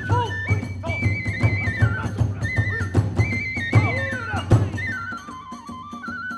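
Kagura hayashi, the music that accompanies Hiroshima kagura: a bamboo flute plays a stepped, ornamented melody over fast, steady drum beats and clashing small hand cymbals.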